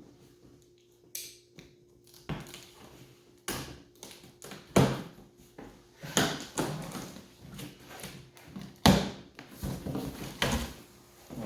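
Cardboard shipping box being opened and handled by hand: a quick sharp rip about a second in, then a run of irregular scrapes, knocks and rustles of cardboard flaps and packaging, loudest about five and nine seconds in.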